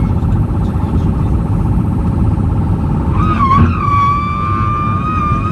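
Loud whistle inside an Airbus A320's passenger cabin over the steady roar of the airliner in flight. The tone wavers, then swells and steadies about three seconds in. It sounded during the emergency return, and its source was never established.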